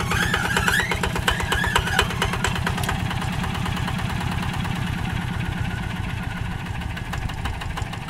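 Single-cylinder diesel engine of a two-wheel walking tractor running steadily at working speed with a rapid, even firing beat while it pulls a plough through wet paddy mud.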